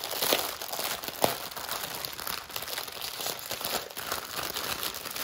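Plastic bags of diamond-painting drills crinkling and rustling as they are handled, with a sharper click about a second in.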